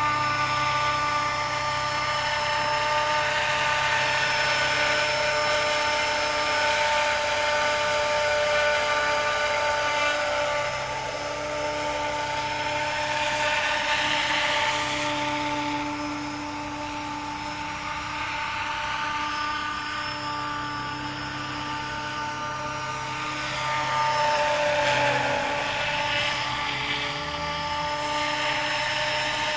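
Radio-controlled 500-size BO-105 scale helicopter with a four-blade main rotor flying passes: a steady high whine from the drive with a rotor rush that swells as it comes near, about halfway through and again near the end, where the whine dips slightly in pitch as it goes by.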